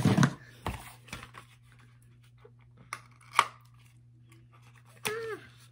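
Small cardboard eyelash box being handled and opened by hand: soft rustles and a few clicks, with two sharper clicks about three seconds in.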